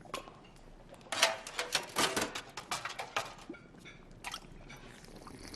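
Quick run of clicks and clatters, like kitchen utensils and dishes knocking together. The clatter is densest from about one second in to about three and a half seconds, then thins out.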